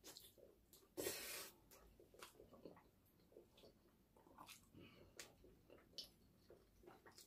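Faint eating sounds from fried chicken: quiet chewing and small mouth clicks at near-silent level, with one brief louder noise about a second in.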